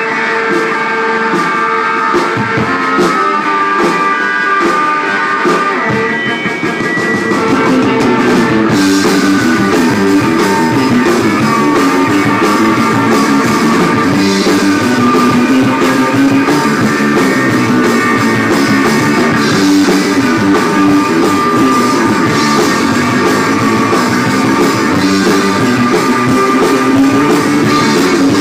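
Live rock band playing loud: electric guitar at first, with the low end filling in about six seconds in and drums with cymbals joining about nine seconds in, after which guitars, bass and drums play on together.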